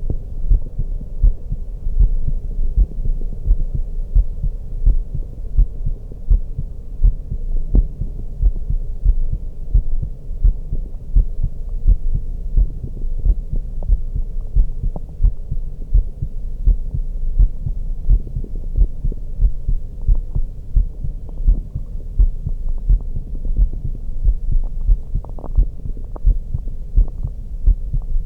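A woman's heartbeat heard through a stethoscope: a steady run of low, muffled beats, roughly one a second.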